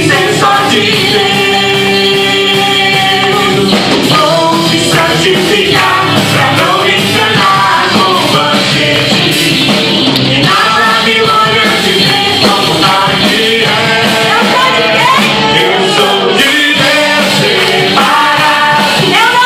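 Loud, steady rock-style worship music from a full band, with a singer's voice.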